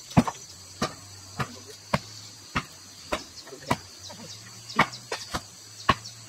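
Steady, regular strikes of a hand tool, a sharp blow about every half second, as in chopping. A steady high insect drone sounds behind them.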